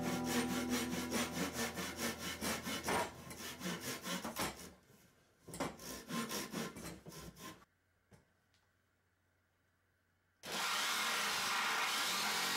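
Japanese hand saw cutting through a pine 2x4, with quick, even strokes about four a second and a short lull midway; the sawing stops about seven and a half seconds in. After a quiet pause an electric jigsaw starts and runs steadily near the end.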